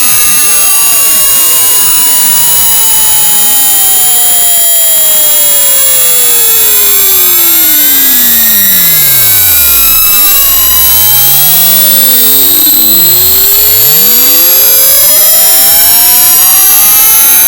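Very loud electronic test tones: many pitch glides sweep up and down at once over steady piercing high whistles. The strongest glide falls from a high whine to a deep rumble about halfway through, then rises again.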